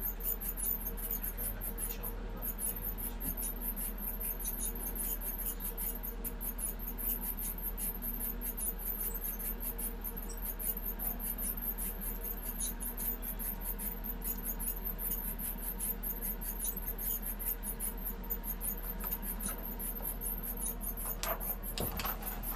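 Automatic X-ray film processor running as a developed film sheet feeds out of its exit slot: a steady hum with a rapid, high-pitched ticking and squeaking from the roller transport. A few sharper knocks come near the end.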